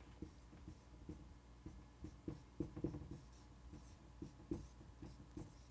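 Dry-erase marker writing on a whiteboard: faint, short, irregular strokes as letters are written.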